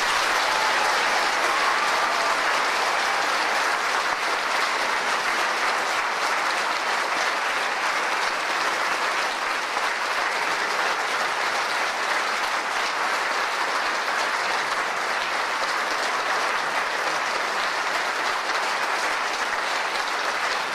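An audience applauding at the close of a speech: a long, steady round of clapping.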